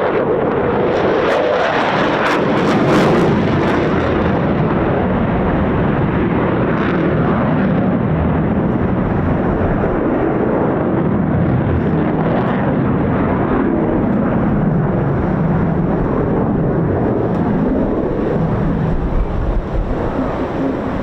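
Eurofighter Typhoon's twin jet engines running at high power in a display pass, a loud, steady jet roar with sharp crackles about two to four seconds in.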